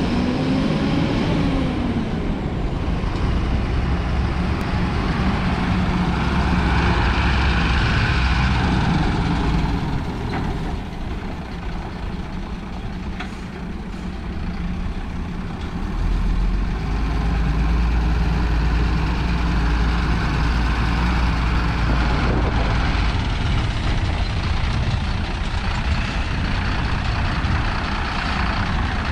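Mercedes-Benz Atego 1523 truck's six-cylinder diesel engine running as the truck drives and manoeuvres, its note rising and falling; it eases off partway through, then a deep low rumble strengthens for several seconds before it settles.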